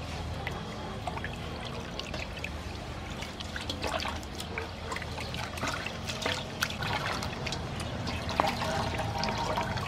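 Water splashing and trickling in a metal basin as a whole raw chicken is washed by hand, with many small splashes. Near the end the chicken is lifted and water streams off it back into the basin.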